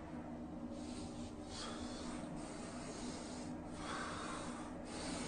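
Faint room noise with a steady low hum and a few soft rustles, like a phone microphone being handled or clothing moving.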